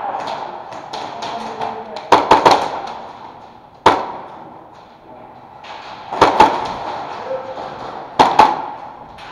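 Airsoft guns firing short rapid bursts and a single shot, sharp cracks echoing off plywood walls. There is a burst of several shots about two seconds in, a lone shot near four seconds, and two more bursts after six and eight seconds.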